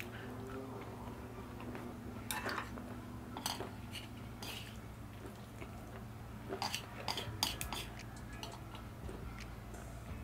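Wooden chopsticks clicking and scraping against a large metal pan as noodles are picked up. There are a few sharp clicks about two to four seconds in and a quicker run of them about seven seconds in, over a low steady hum.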